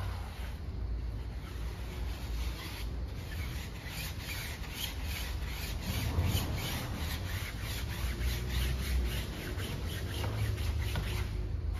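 A brush scrubbing a foamy car tyre in quick, repeated scratchy back-and-forth strokes, over a steady low rumble.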